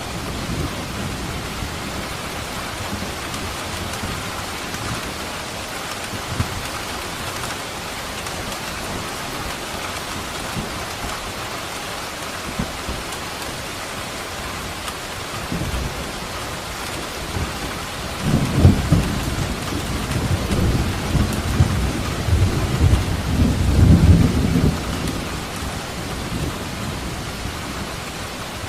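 Steady rain falling, with thunder rumbling. A long, low roll of thunder builds about two-thirds of the way in and lasts several seconds before fading back to the rain.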